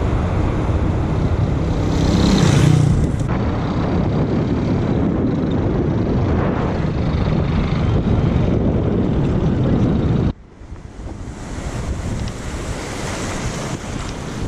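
Wind buffeting the microphone over the rush of surf. About ten seconds in it drops abruptly to a quieter stretch of wind and waves.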